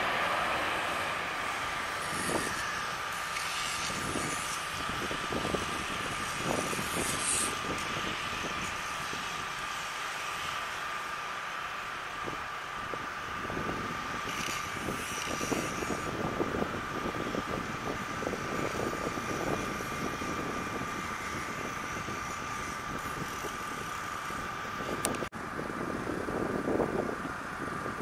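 Jet engines of an Allegiant Airbus A320-family airliner after touchdown: a steady whine over a rushing noise, easing after the first couple of seconds as it rolls out. Near the end a second airliner's engines on landing approach grow louder.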